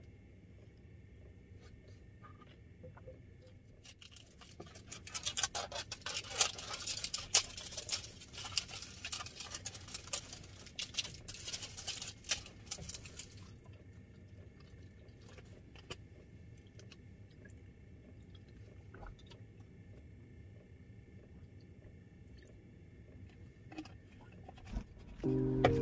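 An empty thin plastic drink bottle being crumpled and crushed in the hands: dense, sharp crinkling and crackling for about nine seconds, starting a few seconds in. Afterwards only faint scattered ticks and rustles while the label is peeled off.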